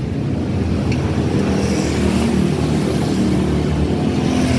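Street traffic: a motor vehicle engine running steadily, with one light click about a second in.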